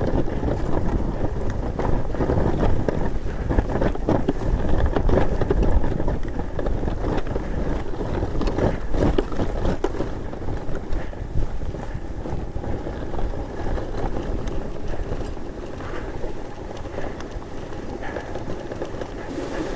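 Stiga Snowracer steering sled running through powder snow, a steady rough rushing noise from the skis, with wind buffeting the microphone.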